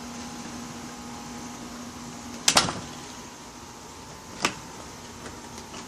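A door being handled: a sharp double knock about two and a half seconds in, then a single click about two seconds later. A steady low hum runs under it and stops at the first knock.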